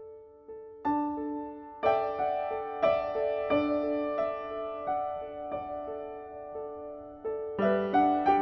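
Background music played on a piano-like keyboard: a quiet run of single notes that swells at about a second in into fuller, repeated chords, each note struck and fading.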